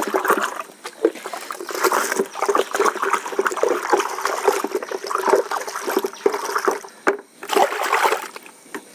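Soapy water sloshing and splashing in a plastic bucket as it is stirred hard with a black-handled implement, then mixed by hand near the end, working bar-soap lather into the water.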